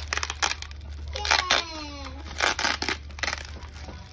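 Plastic packing wrap and bubble wrap crinkling and tape being pulled off, in a string of short rustling, tearing bursts.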